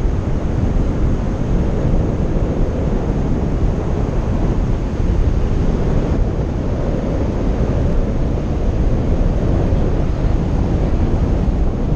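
Wind buffeting the action camera's microphone on its selfie stick in a tandem paraglider's flight: a steady, loud, low rush with no engine.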